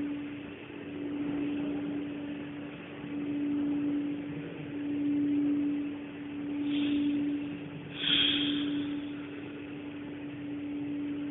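A steady hum at one pitch, swelling and fading every couple of seconds, with two short hissing sounds about seven and eight seconds in.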